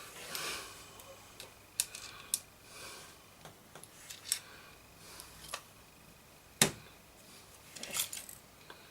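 Scattered small clicks, taps and knocks of tools and parts being handled while dismantling a transistor radio to take its amplifier off the chassis, with the sharpest knock about two-thirds of the way through.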